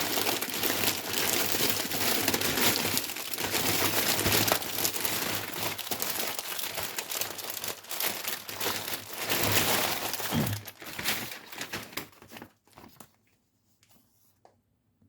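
Packaging being crumpled and rustled by hand for about twelve seconds, then a few light handling clicks before it goes quiet.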